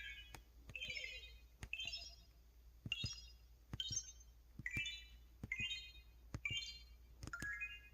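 EV-W350 mobile phone keypad tones in the electronic ('synth') setting: each button press gives a click followed by a short electronic beep. About nine presses come roughly one a second, the beep's pitch changing from key to key.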